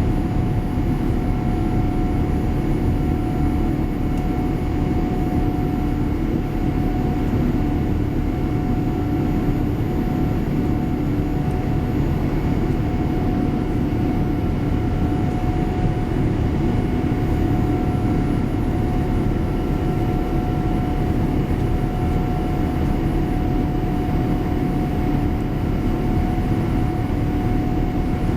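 Steady cabin noise inside a Boeing 787 Dreamliner climbing out after take-off: an even, dense rush of engine and airflow noise with a steady hum running through it.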